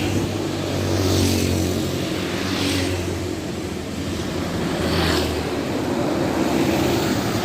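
A coach bus's engine running steadily, with three short hisses at about one, three and five seconds in.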